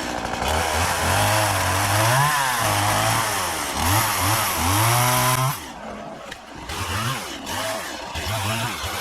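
Chainsaw cutting an oak limb, its engine revving up and down under load. About five and a half seconds in it drops to a quieter run with short throttle blips.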